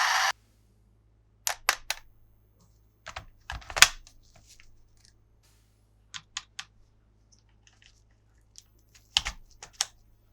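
Sharp clicks and taps of hard plastic toy parts being handled, in small clusters every few seconds. The loudest comes a little before four seconds in.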